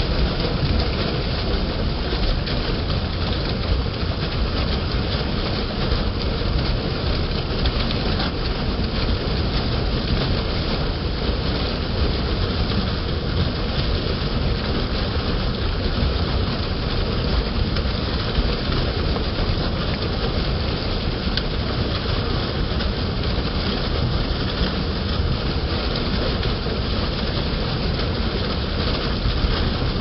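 Water from a 25 HP submersible pump gushing out of its outlet pipe and splashing down a concrete channel into a basin: a steady, full rushing splash.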